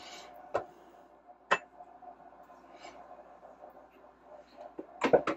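Wooden spoon stirring thick stew in an Instant Pot's stainless steel inner pot, with a few single sharp knocks of the spoon against the pot in the first couple of seconds. A quick cluster of clicks and knocks comes near the end.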